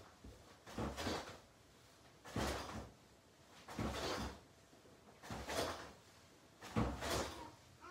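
Karate uniform (gi) trousers swishing each time the legs are snapped back in a kicking-retraction drill, five short crisp swishes about every second and a half, each with a soft thump of movement.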